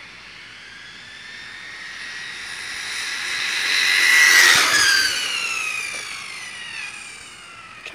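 Electric-converted OFNA Hyper 7 RC buggy passing at speed: the high whine of its electric motor and drivetrain builds as it approaches, is loudest about four seconds in, then drops in pitch and fades as it speeds away.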